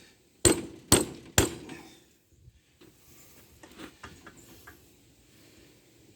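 Three sharp strikes on metal, about half a second apart, each ringing briefly, knocking at a stuck piece of the cart's frame; a few light clicks and taps follow.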